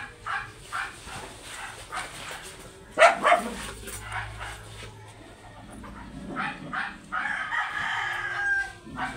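Dog barking repeatedly in short sharp barks, with a louder bark about three seconds in. A rooster crows in one long call near the end.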